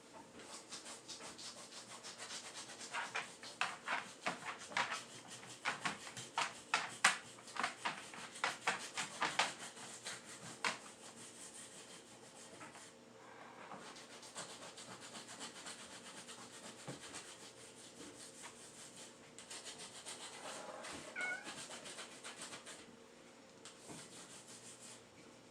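Small hand scrubber scrubbing a soiled floor with cleaner in quick back-and-forth strokes, about two a second and sharpest in the first half, then softer rubbing. A short, high, wavering animal whine comes about three-quarters of the way through.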